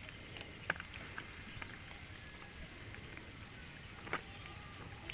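Quiet outdoor background with scattered faint clicks and two sharper knocks, one near the start and one about four seconds in.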